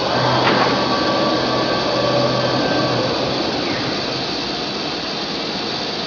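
1825 ATC CNC router cutting MDF: a steady, loud whir and hiss from the spindle and bit, with a low hum for about the first three seconds.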